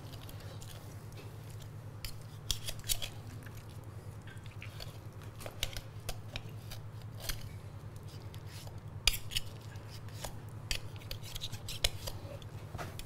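A knife and metal tongs clicking and scraping against each other and the bone while a roast chicken is carved off its breastbone, as irregular sharp clicks over a low steady hum.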